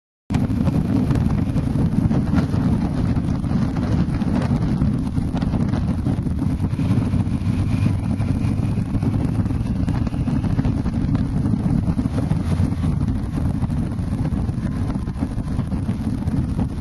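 Wind buffeting the microphone of a camera riding on a moving motorcycle: a steady low rumble of wind and riding noise that cuts in suddenly just after the start.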